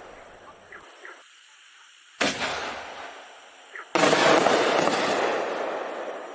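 Consumer canister shell fireworks (8-inch quad break shells) going off outdoors: a sharp report about two seconds in, then a small pop and a louder boom about four seconds in that rumbles away over a couple of seconds.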